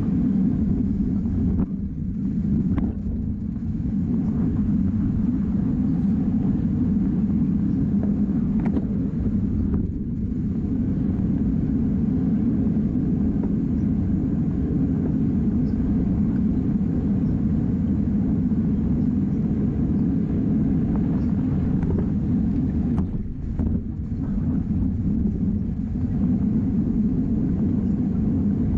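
Steady wind noise on an action camera's microphone, riding a road bike at racing speed. It eases briefly a few times.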